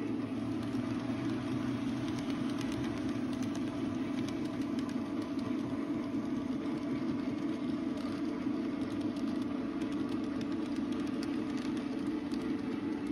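N scale model freight train running along the track: a steady mechanical running noise with faint, irregular clicks from the wheels on the rails.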